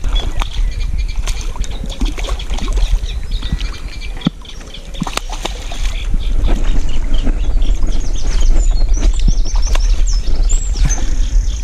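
Small birds chirping and singing, with a run of short high repeated notes in the second half, over a steady low rumble on the microphone and scattered clicks and knocks.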